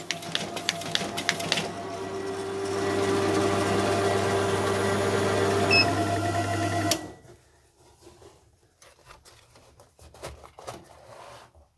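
Paper folding machine running: a rapid run of clicks as sheets feed through, then a steady motor hum that grows louder and stops abruptly about seven seconds in. After it stops, faint rustling of folded paper being handled.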